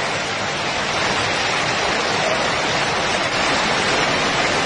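Floodwater cascading down a flight of stairs during a flash flood: a steady, unbroken rushing.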